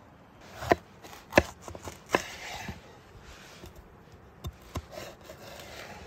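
Chef's knife cutting a red sweet pepper on a wooden cutting board: three sharp knocks of the blade on the board in the first couple of seconds, with softer slicing and scraping in between and after, then two lighter knocks later on.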